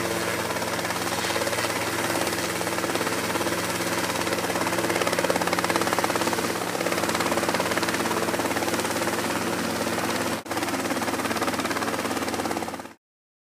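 Small helicopter flying low overhead: fast, steady rotor chop over a constant engine drone. The sound drops out for an instant about ten seconds in and cuts off abruptly near the end.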